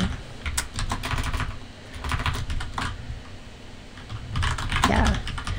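Typing on a computer keyboard: irregular runs of key clicks, some landing with a dull thud.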